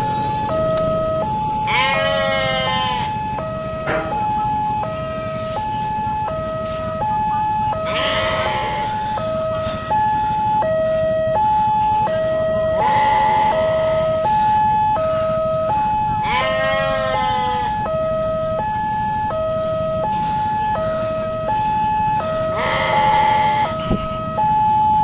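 Railway level-crossing electronic warning alarm from the pole-mounted loudspeaker, two tones alternating about once a second without a break, the signal that a train is approaching. About every five seconds a wavering, siren-like call sounds over it.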